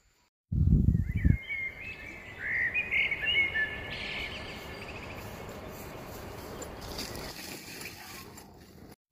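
A loud, low rumble about half a second in, then birds chirping in quick, short rising notes for a few seconds over steady outdoor background noise.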